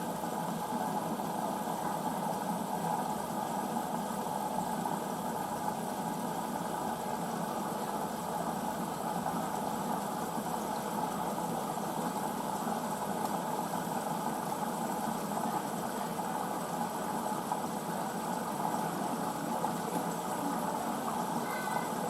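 Hoover VisionDynamic washing machine running steadily at the start of a synthetics 40 cycle, a constant mechanical hum that stops abruptly at the end.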